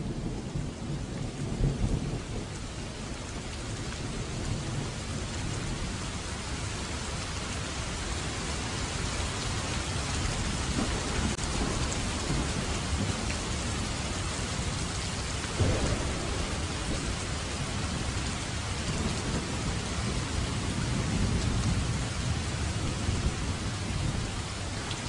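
Steady heavy rain with thunder rumbling low underneath, and one short, louder thunder peak about two-thirds of the way through.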